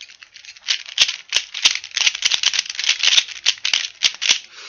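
Rubik's cube being scrambled by hand: its plastic layers turning in quick succession, a rapid run of sharp clicks and rattles, several a second with brief pauses, sparser for the first half second.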